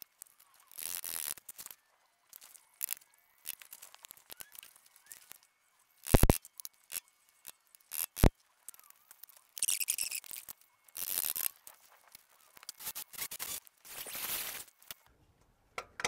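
Screwdriver blade scraping and picking at the remains of a seized, broken ABS wheel speed sensor in its bore in the wheel hub, breaking out the plastic body and fine copper winding. Short irregular scrapes, with two sharp metallic clicks about six and eight seconds in.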